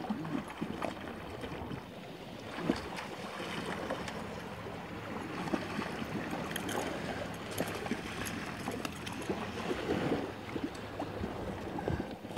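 Wind on the microphone and small waves lapping at a rocky shore, with scattered light knocks and scuffs and one sharper knock about three seconds in.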